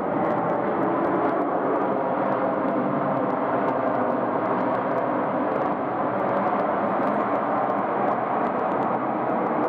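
Airbus A321-211 jet airliner's CFM56 turbofan engines running in a steady, even roar as it rolls out on the runway after touchdown, wing spoilers raised.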